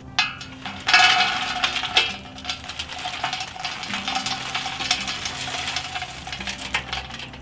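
Glowing charcoal tipped into a steel fire bowl: lumps clinking and clattering as they tumble over one another. There are sharp knocks about a second and two seconds in, then a dense rattle that tails off near the end.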